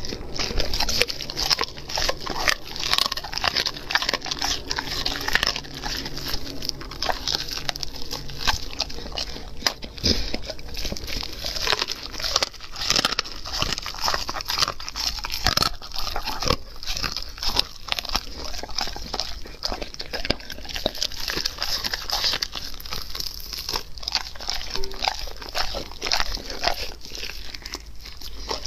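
German Shepherd chewing and tearing at roasted meat on the bone, a continuous run of close, wet crunches and clicks from its jaws.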